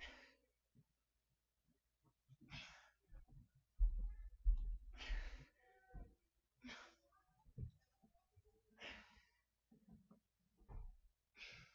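A woman breathing heavily under exertion: about six sharp, breathy exhales, one every two seconds or so, in time with dumbbell chest-press reps, with a few soft low thumps about four to five seconds in.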